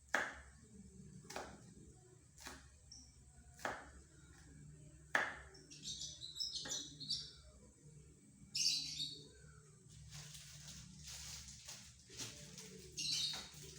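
Sharp single knocks roughly once a second, like a knife chopping on a cutting board, with small birds chirping in the background.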